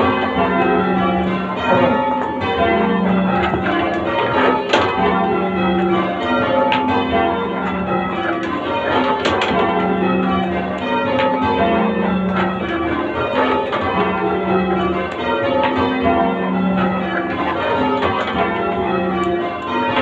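Change ringing on a heavy ring of church bells in the tower, heard from the ringing chamber below: a steady, continuous run of overlapping bell strikes, each bell ringing on.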